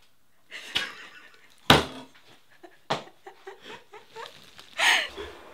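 A person laughing helplessly in wheezy, breathy bursts, with knocks and thumps on a wooden table; the heaviest thump comes about a second and a half in, followed by a run of small taps.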